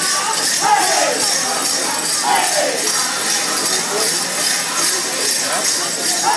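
Grass dancers' ankle bells jingling in a steady rhythm over a powwow drum song, with singers' voices sliding down in pitch twice.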